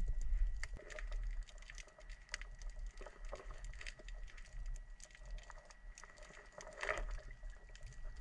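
Scattered light clicks and crackles over a low rumble, with a slightly louder cluster about seven seconds in, as a round-framed hand net is worked through shallow river water. A faint steady high tone sits underneath.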